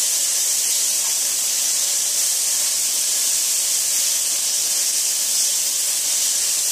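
Bite-sized chicken pieces sizzling steadily as they sear in shallow hot oil in a frying pan: an even, high hiss, the sign that the oil is at the right temperature.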